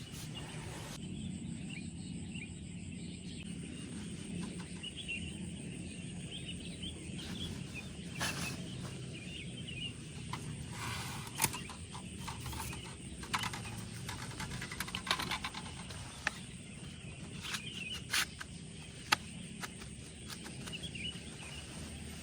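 Night-time outdoor ambience of insects chirping over a low rumbling noise, with a few short sharp knocks in the second half.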